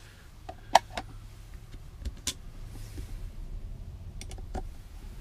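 A small precision screwdriver driving screws into the lid of a plastic project box: scattered clicks and light scrapes of the bit and the hands on the plastic. The sharpest click comes just under a second in.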